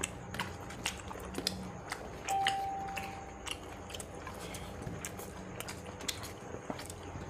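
People eating rice and fish curry: scattered small clicks and smacks of chewing and handling food on the plate. A brief steady tone sounds a little over two seconds in and lasts about a second.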